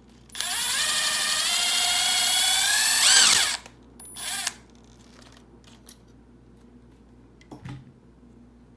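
Power drill driving a self-tapping screw into a rivet on a metal cell end plate to drill it out: a steady motor whine for about three seconds that rises in pitch just before it stops, then a short second burst about half a second later.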